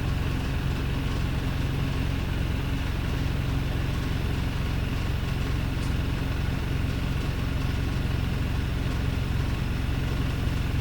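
Wrightbus StreetLite bus's Daimler OM934 four-cylinder diesel engine idling steadily, with a rough, uneven idle.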